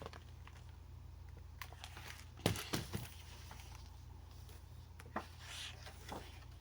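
Quiet handling of a picture book's paper pages as one is turned: a few soft clicks and a brief rustle, over a steady low hum.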